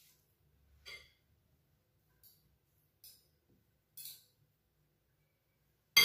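A metal spoon tapping and scraping faintly a few times against a plate and glass bowl while lumpia filling is spooned out, then a loud ringing clink near the end as the spoon strikes the glass bowl.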